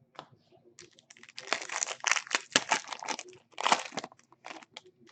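Plastic wrapper of a Panini Optic Choice basketball card pack crinkling and tearing as it is ripped open, in a run of irregular crackles.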